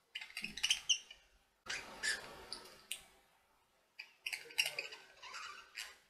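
Budgerigars chirping and chattering in short bursts of quick, high notes, with a brief burst of noise about two seconds in.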